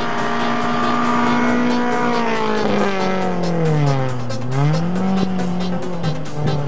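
A VW Gol rally car's engine held at high revs, then dropping steeply from about two seconds in as it brakes into a gravel bend, and climbing again as it powers out.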